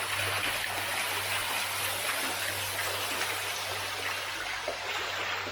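Running water splashing steadily, an even hiss with a low steady hum beneath it.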